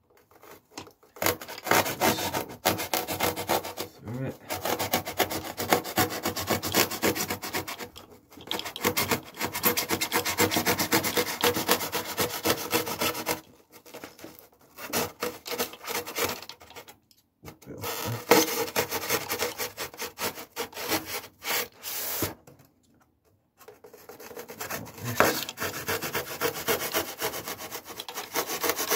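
Polystyrene foam block being cut, a scratchy rasping in long runs of rapid back-and-forth strokes separated by short pauses.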